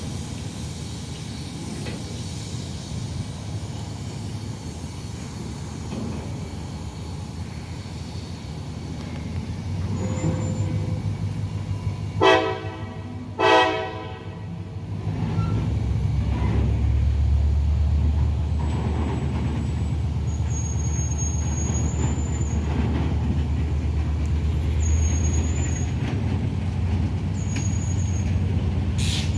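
Diesel locomotive air horn sounding two short blasts, then a deep, steady diesel engine drone that grows louder and holds.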